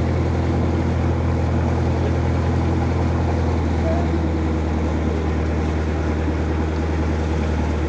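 An engine aboard a boat running with a steady low drone.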